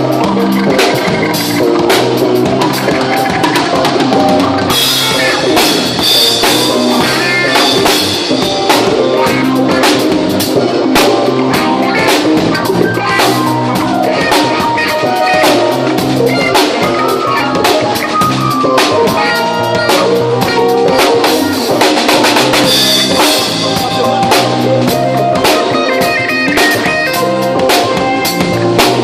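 A live band playing together: a drum kit driving the beat, with bass guitar, keyboard and guitar. Steady and loud throughout, turning brighter about five seconds in.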